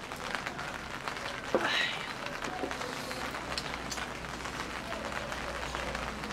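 Scattered small clicks and taps of chopsticks against bowls as several people eat, with a short exclamation of 'ai' about one and a half seconds in.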